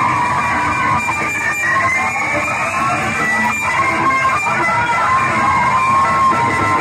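Music playing, with a melody line that wanders up and down.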